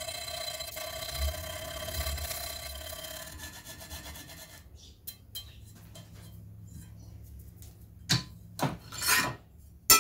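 Cut edge of a steel plate in a bench vise being hand-sanded with fine sandpaper, smoothing it after an angle-grinder cut. A steady rasping rub with a ringing tone for the first four seconds or so, then quieter, with three louder strokes near the end.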